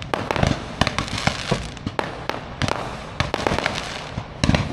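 Aerial fireworks bursting: a fast, irregular string of sharp bangs and pops, with a cluster of louder bangs near the end.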